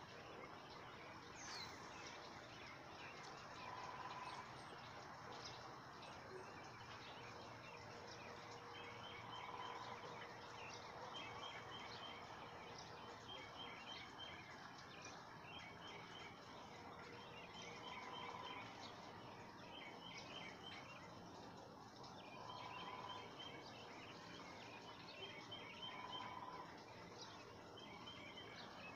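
Faint outdoor ambience with birds calling: a short high trill repeated every two to three seconds from about eight seconds in, and a few brief lower calls.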